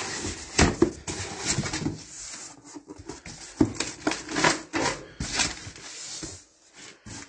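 Cardboard box flaps and plastic packing wrap being pulled open by hand, rustling and crinkling in irregular bursts.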